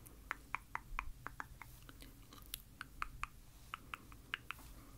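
A quick, irregular run of soft, close-miked clicks, about four a second.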